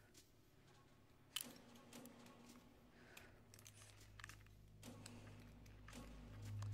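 Faint, scattered small metal clicks and scratches of a bed restraint's lock being worked, over a low steady hum that swells near the end.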